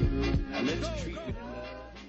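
Background music fading out steadily.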